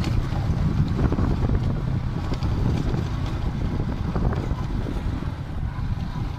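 Heavy wind buffeting on the microphone of a moving motorcycle, with the motorcycle engine running underneath.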